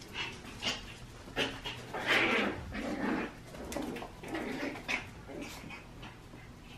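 Small puppies at play, making a string of short, irregular yips and whines.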